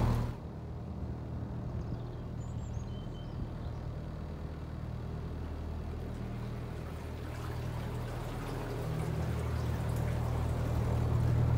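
A narrowboat's engine running steadily under way, a low even hum, with water washing along the hull. The hum grows a little louder in the last few seconds.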